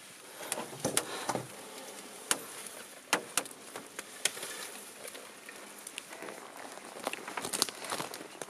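Footsteps pushing through brushy forest undergrowth, with irregular sharp snaps of twigs and sticks underfoot over a steady hiss.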